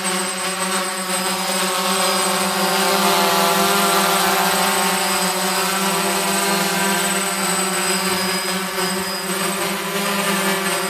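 DJI F550 hexacopter's six 920 KV brushless motors and propellers hovering, a steady multi-tone buzzing hum whose pitch wavers slightly a few seconds in as it holds position. It is near the end of an 11-minute flight on a battery run down to about 10 volts.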